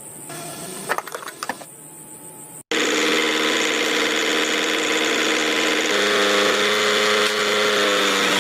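A few light clinks and knocks, then a small motor starts abruptly and runs with a steady whine, which drops slightly in pitch about six seconds in.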